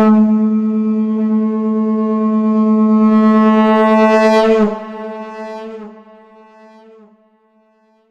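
Shankh (conch shell) blown on one long note pitched on A. It starts abruptly, holds strong for about four and a half seconds while growing brighter, then drops off sharply and fades out.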